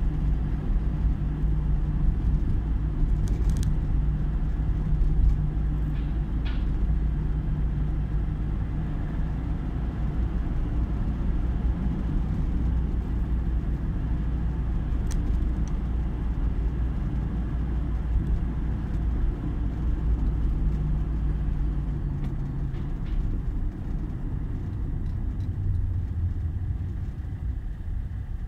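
Low engine and road rumble heard inside a car's cabin while driving in city traffic. The rumble eases late on as the car slows, and the engine settles to idle at a red light.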